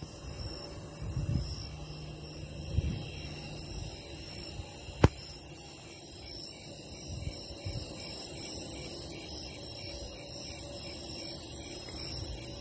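Snowy tree crickets chirping in steady rhythm, about two chirps a second, over the continuous high-pitched buzz of a buzzing conehead. A single sharp click about five seconds in.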